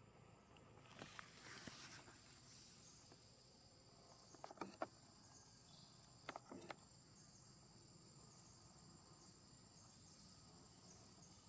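Faint, steady high-pitched insect drone, with a few soft clicks about a second in, near four and a half seconds and near six and a half seconds.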